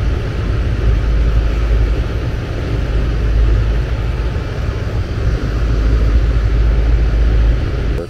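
Outdoor air-conditioning condensing unit running: the Copeland scroll compressor humming under load with the condenser fan blowing air, a steady loud rumble. It is drawing close to its rated current, a sign it is running normally.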